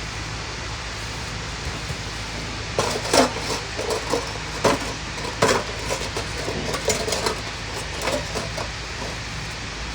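Kitchen utensils and containers clinking and knocking in an irregular run of sharp clicks, starting about three seconds in and lasting about six seconds, over a steady low hum.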